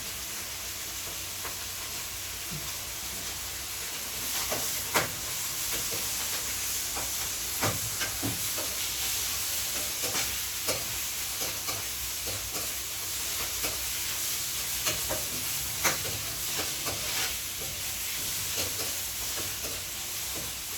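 Mushrooms frying in a pan with garlic, onions and beef: a steady sizzle, with a spatula clicking and scraping against the pan as the mix is stirred, irregularly from about four seconds in.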